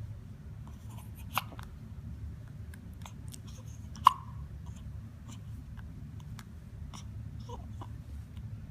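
A person hiccuping twice: short, sharp hics about a second and a half in and about four seconds in, the second much louder, with faint small mouth clicks between.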